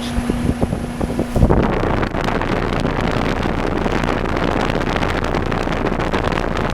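Trane XR16 air conditioner's outdoor unit running with a steady hum; about a second and a half in, heavy wind noise buffets the microphone and drowns it out.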